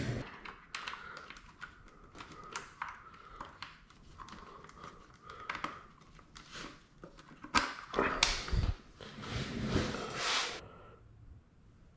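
Handling noise: scattered clicks, taps and rustling as a hand tool and the bike's ignition key with its keychain are handled. There is a louder stretch of rustling from about eight to ten seconds in.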